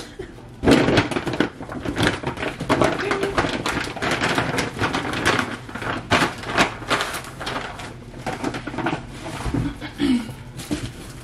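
Plastic grocery bags rustling and crinkling as they are handled and folded, in a dense, irregular crackle.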